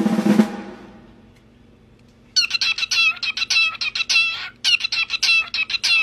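Cockatiel whistling in quick, choppy chirping phrases with sliding pitch, in two runs split by a brief pause. A drum roll fades out in the first half-second.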